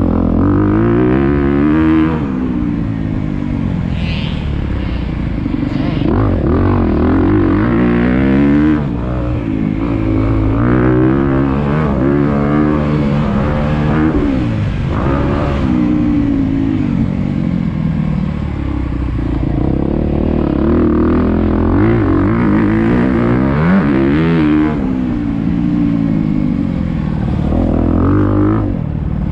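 2022 Honda CRF250R's 250cc single-cylinder four-stroke engine under hard riding: revving up through the gears again and again, pitch climbing on each pull and dropping at each shift or throttle-off.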